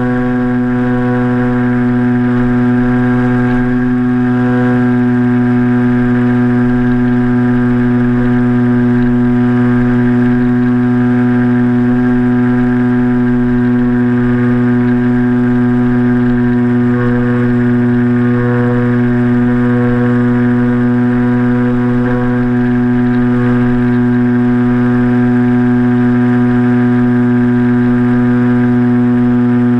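Motor and propeller of a BlueWing RC flying wing running at a steady, even pitch, picked up by the camera mounted on the plane. It is a loud, constant drone made of several tones.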